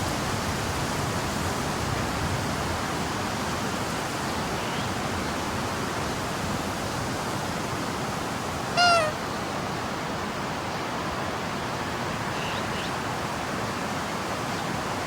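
Stomach rumbling under a steady hiss, with one short, high squeaky gurgle about nine seconds in.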